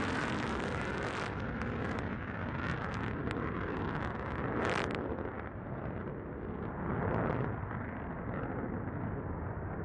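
Jet engine noise from a low-flying F-35A, its single Pratt & Whitney F135 turbofan a steady, heavy rumble as the gear-down jet passes and moves away. The hissing top of the sound dulls about halfway through as the aircraft recedes.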